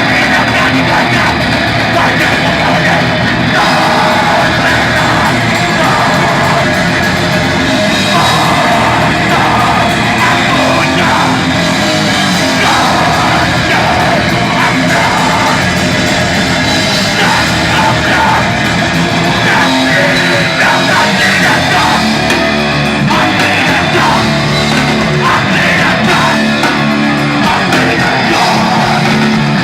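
A rock band playing live and loud, with guitar and yelled, heavy-metal-style vocals over a dense, unbroken wall of sound.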